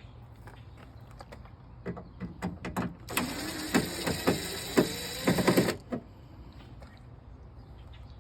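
Drill with a Phillips bit running in bursts for about two and a half seconds, backing out a speaker screw, its motor pitch wavering. A few clicks and knocks come just before it.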